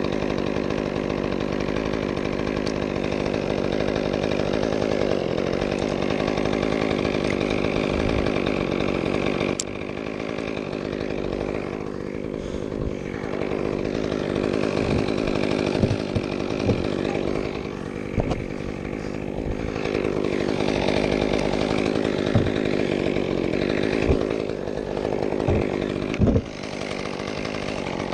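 Chainsaw running under load, cutting through fir wood. It holds a steady note for about the first ten seconds, then turns more uneven, with sharp knocks every couple of seconds.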